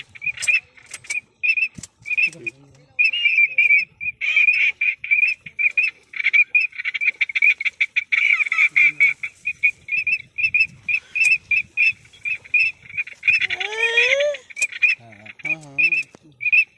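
Rapid, high-pitched duck calling: a steady stream of short repeated notes, several a second, with a lower rising call about three-quarters of the way in.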